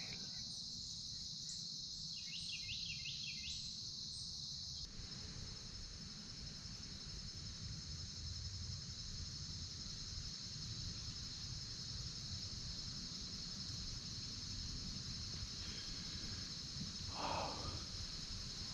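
Steady high-pitched insect chorus filling the woods, over a low rumble. A few short bird chirps come about two to four seconds in, and a brief louder call comes near the end.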